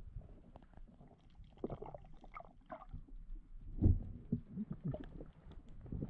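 Sea water heard underwater through an action camera's waterproof housing: irregular muffled low thumps, the loudest about four seconds in.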